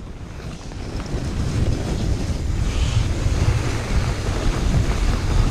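Wind buffeting the action camera's microphone as a toboggan runs fast down a packed-snow track, with the sled's hiss on the snow underneath, growing steadily louder as it goes.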